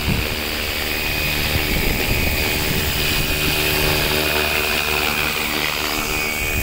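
FW450 450-size electric RC helicopter hovering low over the ground: its rotors make a steady drone, with a steady high whine above it.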